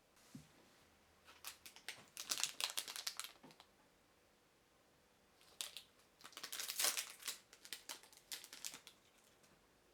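Plastic packaging crinkling as it is handled, in two bursts of dense crackling separated by a short pause.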